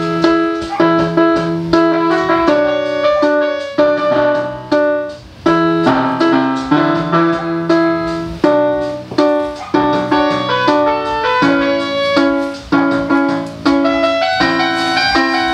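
GL-400 electronic keyboard playing a piano-voice piece through its built-in speaker: a steady run of struck, decaying notes, a melody over chords, without a break.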